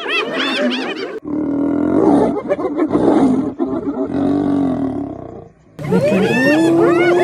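Spotted hyenas giggling and yelping with many high, swooping calls over one another. About a second in this gives way to a lioness's deep, rough snarling growls. From about six seconds the hyena pack calls over one another again, one voice drawn out and rising.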